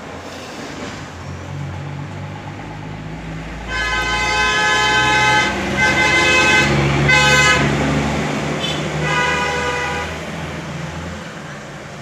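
A motor vehicle's engine rumbles past while its horn is sounded in several blasts, starting about four seconds in and ending around ten seconds; the engine sound fades out near the end.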